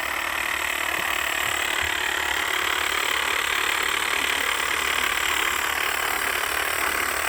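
Power saw running steadily as it cuts low through the trunk of a Christmas tree.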